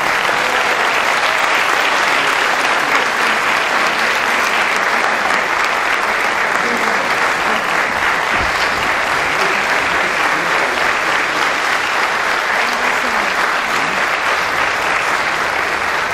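Steady, sustained applause from a concert audience and orchestra, with many hands clapping at once.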